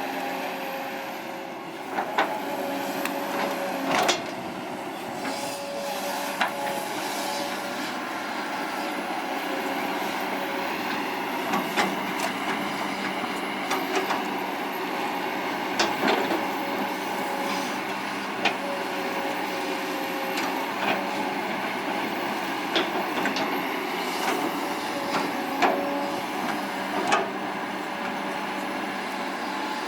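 Kobelco SK200-8 Super XM excavator working: a steady engine and hydraulic hum with a held tone, broken by sharp metallic clanks every few seconds.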